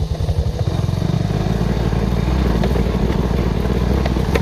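Motorcycle engine running while the bike is ridden over a dirt trail, its pulsing note speeding up and evening out about a second in. A sharp knock sounds near the end.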